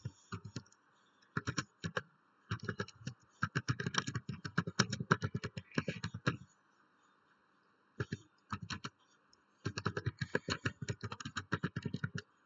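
Typing on a computer keyboard: runs of quick keystrokes, with a pause of a few seconds a little past halfway.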